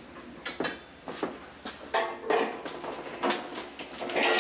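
Mudmixer concrete mixer being tipped upright: a series of metal knocks and clunks, then a louder, longer rattle near the end from the loose guard inside the mixer.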